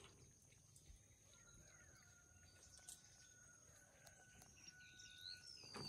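Near silence in an open rural setting, with a faint steady high background tone and a few faint bird chirps near the end.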